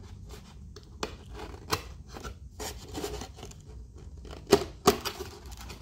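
Long cardboard box being opened by hand: rubbing and scraping of the lid and flaps, with scattered clicks and two sharp snaps just under five seconds in.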